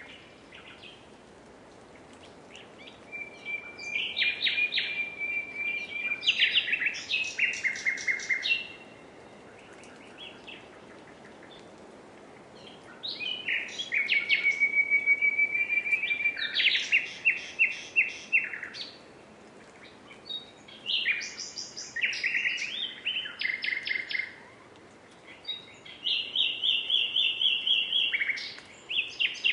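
Nightingale singing in four phrases separated by pauses of a few seconds. Each phrase mixes a held whistle with fast runs of repeated notes.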